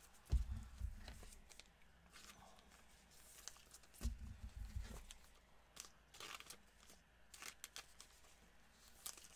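Faint crinkling and crackling of a trading-card cello pack's cellophane wrapper handled by gloved hands, broken by two dull thumps on the table, about half a second in and about four seconds in.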